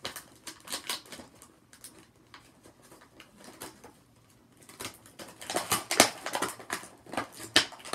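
Clear plastic toy packaging crinkling and clicking as it is handled and pulled open, sparse at first and then busier and louder over the last few seconds with a few sharp snaps.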